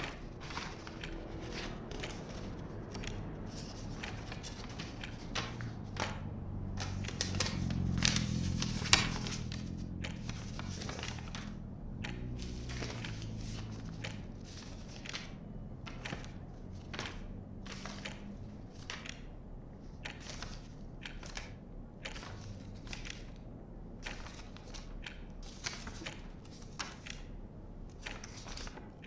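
Quiet room ambience of small clicks, rustles and crinkling, as of someone handling books and paper. A low rumble of street traffic rises and fades, loudest about eight seconds in, with a couple of sharper knocks around then.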